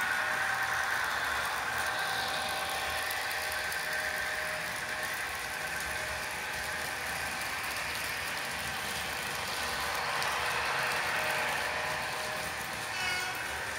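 Model trains running along layout track: a steady whirr of small electric motors and wheels rolling on the rails, with a short pitched tone near the end.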